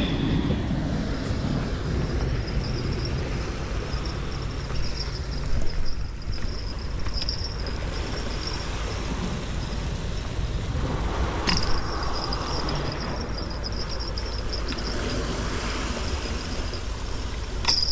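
Steady low rumble of sea surf and wind, with a thin high tone running through much of it and two sharp clicks, one about two-thirds of the way in and one near the end.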